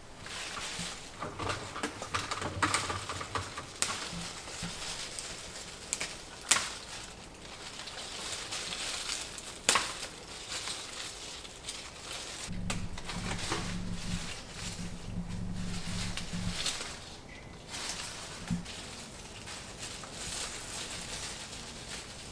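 Leaves rustling and stems snapping as plants are picked by hand from a vertical tower garden, with a few sharp snaps. A low hum comes in about twelve seconds in and stops about four seconds later.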